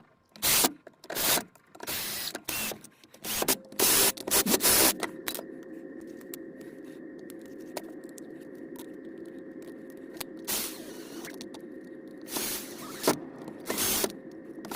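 Sped-up workshop handling sounds: a quick run of sharp clicks and scrapes as parts and tools are handled. About five seconds in, a steady hum takes over, broken by a few scraping bursts.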